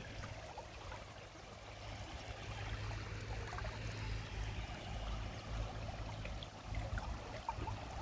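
Shallow stream flowing and trickling over stones, with a low rumble rising and falling underneath.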